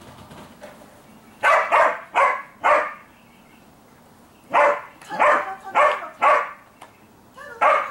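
Dog barking in short, loud barks: a run of four about a second and a half in, four more a moment later, and a single bark near the end.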